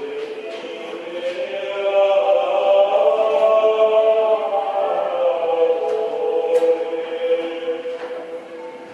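Background music of a choir singing long, held chords, swelling about two seconds in and fading away near the end.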